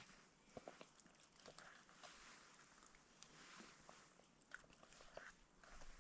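Faint chewing and small scattered clicks of a person eating.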